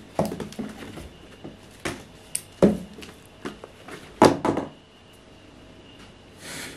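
A cat moving about in a cardboard box: several sharp knocks and scrapes against the cardboard, loudest about two and a half and four seconds in, then a short rushing sound near the end.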